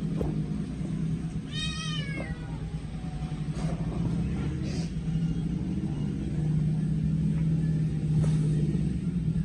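A kitten meows once, a short high call that falls slightly in pitch about two seconds in, with a few fainter sounds later, over a steady low hum.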